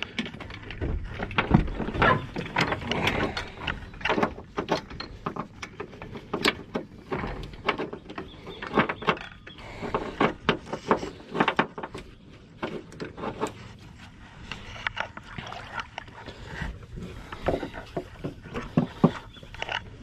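Irregular clinks, knocks and rattles of metal fittings and a boat hull being handled on its trailer as the winch strap hook is unhooked from the bow eye, with a quieter stretch about two-thirds of the way through.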